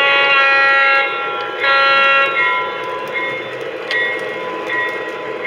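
Lionel FT diesel's RailSounds horn sounding two blasts, a long one and then a shorter one about half a second later, with the bell dinging at a steady pace under the steady running sound of the locomotive.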